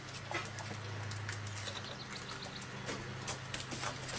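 Close-up sounds of a tabby cat with its head down at a child's hands: scattered soft clicks and ticks over a low steady drone.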